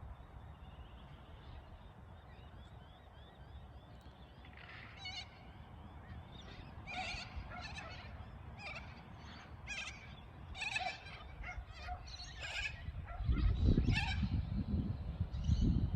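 Birds calling: faint high chirps at first, then from about five seconds in a run of repeated calls, several close together at times. A low rumble joins in the last few seconds and is the loudest sound.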